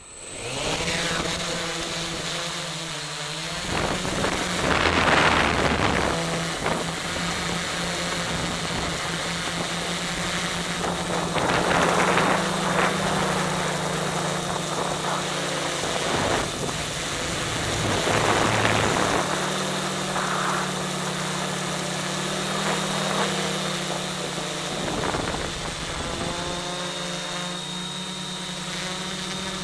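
Quadcopter's electric motors and propellers, heard from the camera riding on the drone: they spin up at the very start, then buzz steadily, the pitch shifting with throttle. Rushing-air surges come every several seconds.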